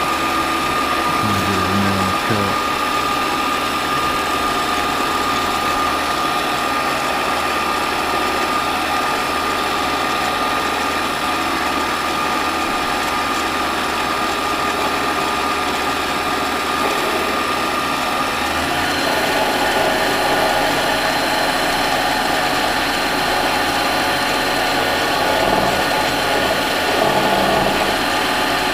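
Harbor Freight mini lathe running steadily, its motor and gear train giving a constant mechanical whine. About two-thirds of the way through, the sound changes: the middle tone drops out and a higher whine takes over.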